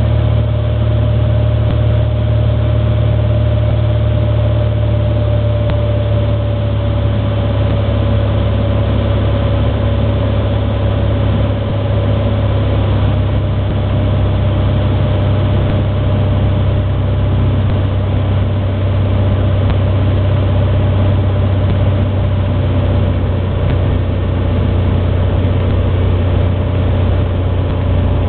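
Cessna 182's six-cylinder piston engine and propeller droning steadily, heard inside the cockpit during a landing approach; one tone in the drone eases slightly lower in pitch over the first dozen seconds.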